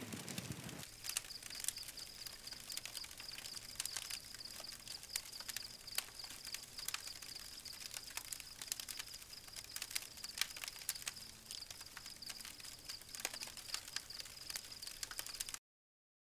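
Wood campfire crackling, with irregular sharp pops and snaps, over a steady high-pitched drone; the sound cuts out to silence near the end.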